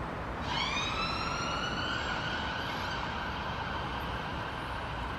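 Siren that rises at the start, then holds one high, steady pitch over street noise.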